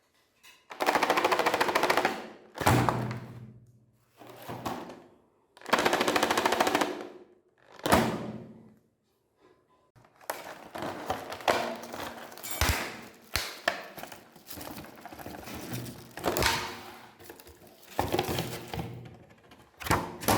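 Meat grinder crushing chocolate bars: a dense, rapid crackling and crunching. It comes in several loud bursts of a second or two, then runs on almost without a break from about halfway through.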